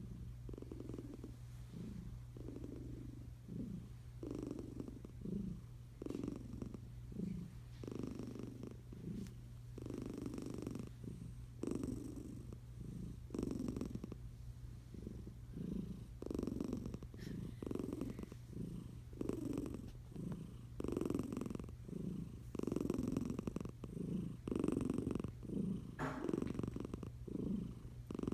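Sleeping tabby cat snoring in a steady rhythm of soft, raspy breaths, louder in the last few seconds.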